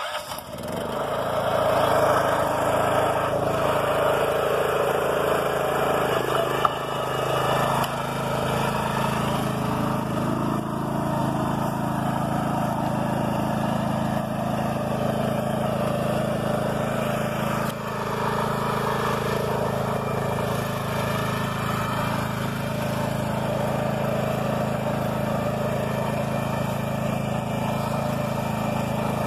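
BCS two-wheel walk-behind tractor engine running steadily under load while pulling a heavy roller crimper. It comes up in level over the first two seconds, then holds a steady drone.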